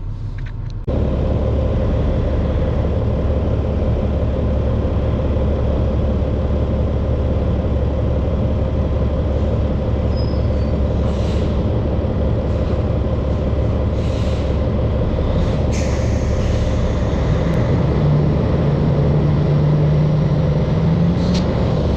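Heavy diesel farm machine's engine running steadily under load while pushing up a heap of sunflower pellets. A few short, sharp noises sound over it, and the engine note rises slightly near the end.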